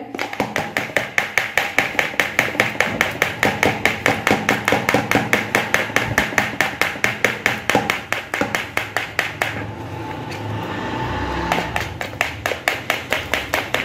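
Steel spoon rapidly beating raw egg mixture in a plastic bowl: fast, even clicks of the spoon against the bowl, about five or six a second. The clicks ease into a softer stirring swish for a couple of seconds about two-thirds through, then pick up again.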